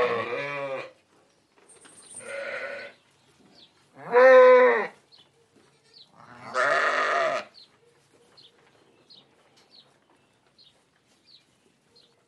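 Flock of sheep bleating: several separate bleats in the first seven seconds, the one about four seconds in the loudest, then only faint soft clicks.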